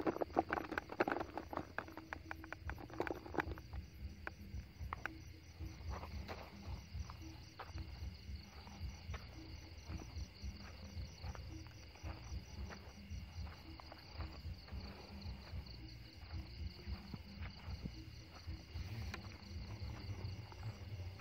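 Crickets and other night insects chirring steadily in a pulsing chorus. A flurry of knocks and clatter in the first few seconds, then scattered knocks and rustles for the rest.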